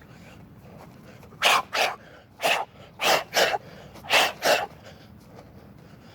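A person shadow boxing, letting out sharp forceful exhalations through the mouth and nose with each punch. There are seven short hisses, mostly in quick pairs, like punch combinations.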